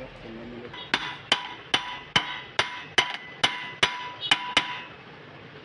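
A hammer tapping a metal part of a water pump motor during repair, about ten evenly spaced strikes, each with a short metallic ring.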